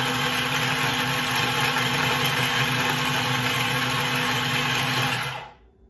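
Small electric mini food chopper running steadily as it grinds chicken gizzards fine, its motor stopping about five seconds in.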